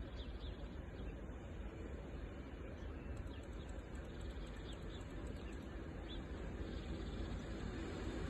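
Scattered faint bird chirps over a low, steady outdoor rumble that grows slightly louder near the end.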